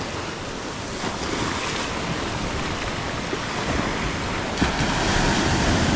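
Ocean surf washing up a beach: small waves breaking and foam running up over the sand, a steady wash that grows a little louder about two-thirds of the way through.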